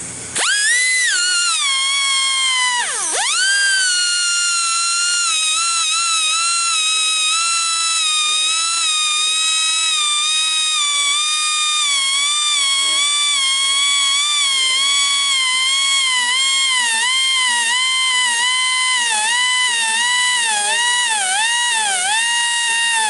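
Air-powered grinder spinning with a high whine while sharpening the teeth of a bandsaw-mill blade. It starts up at once, dips sharply in pitch about three seconds in, then runs on with its pitch sinking slowly as the small air compressor loses pressure. Near the end the pitch dips briefly about once a second as each tooth is ground.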